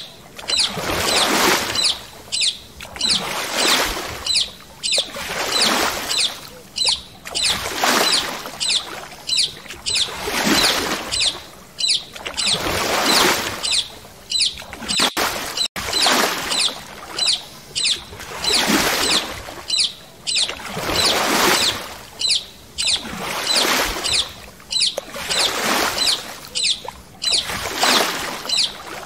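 Paddle strokes in water: a swishing splash about every second and a half, repeating evenly.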